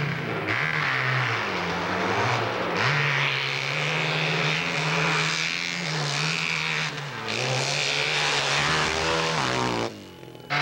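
Hillclimb racing motorcycle engine revving hard, its pitch rising and falling repeatedly as the throttle is worked. Near the end the pitch sweeps up, then the sound drops away abruptly.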